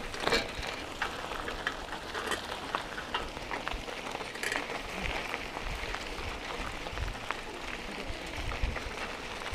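Steady rushing noise with scattered short clicks and rattles, typical of a bike rolling over a rough road, heard through the camera's microphone.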